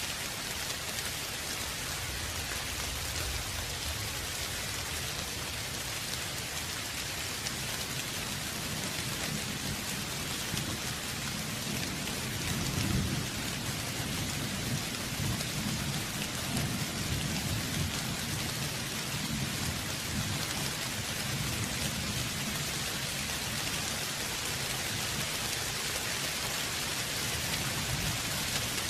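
Steady rain hissing down, with a low rumble of distant thunder rolling in about twelve seconds in, swelling for several seconds and then fading back under the rain.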